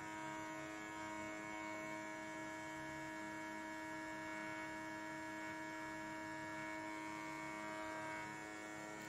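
A steady electrical hum made of several fixed tones, held evenly at a low level.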